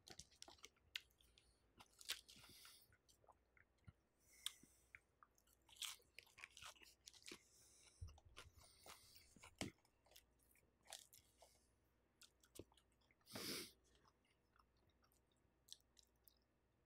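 Faint chewing and crunching of a buffalo chicken salad: scattered soft mouth clicks and small crunches, with one louder burst about three-quarters of the way through.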